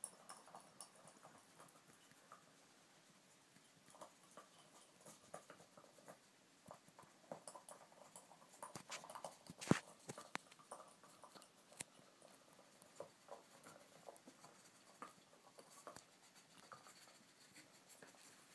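Faint scuffling and small scattered clicks as pet skunks nose and push a rubber Kong toy across carpet, with one sharper knock about ten seconds in.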